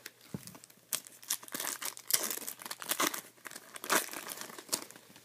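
Plastic wrapper of a trading-card pack crinkling and tearing as it is opened by hand: a dense run of crackles, loudest about two and four seconds in.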